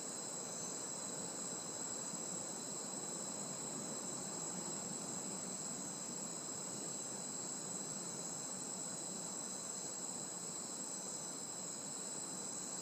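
Chorus of rainforest insects, crickets and other bugs, calling without a break at dusk: several steady high-pitched trills layered together over a low background hiss.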